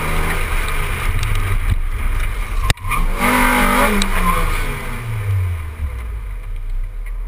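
Car engine and road noise picked up by a camera mounted low on the car's side during an autocross run. There is a sharp click about halfway through, then the engine note falls steadily as the car slows down.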